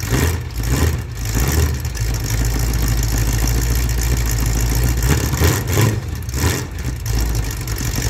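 Car engine running with a deep steady note, given a few short blips of the throttle near the start and again later.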